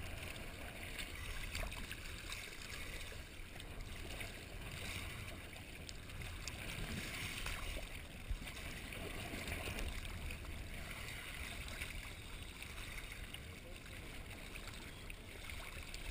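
Underwater noise on a scuba dive: a steady muffled rush with the diver's regulator breathing and exhaled bubbles, swelling every few seconds.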